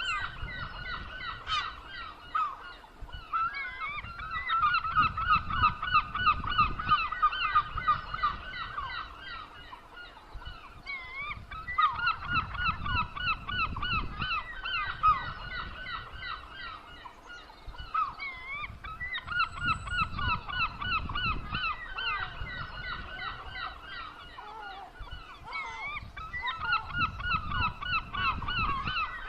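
A flock of seagulls calling over one another in a dense, continuous chorus of short harsh calls. The chorus swells and fades in waves, loudest around five to seven seconds in, again around twelve to fifteen seconds, and near the end. A low rumble runs underneath.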